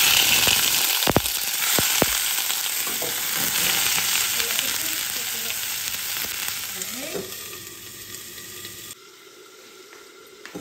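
Pieces of old hard chicken dropped into hot ghee in a stainless steel pot, sizzling loudly at once and slowly dying down, with a few knocks as the pieces land about a second in. Near the end the sizzle drops off sharply as the pot's lid goes on.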